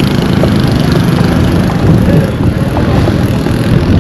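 Road traffic: a vehicle engine running close by, a loud, steady low rumble.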